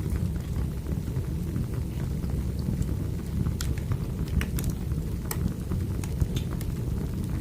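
Wood fire burning: a steady low rumble of flames with sharp crackles and pops at irregular moments.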